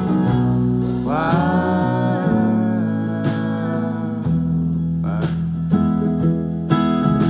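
Country-style song with acoustic guitar and a singer, who holds a long sung note about a second in.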